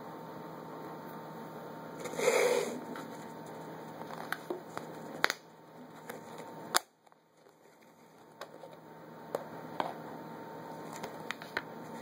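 Handling noise: a brief rustling scrape about two seconds in, then scattered clicks and taps, over a steady background hum. The hum cuts off after a sharp click about seven seconds in and then slowly returns.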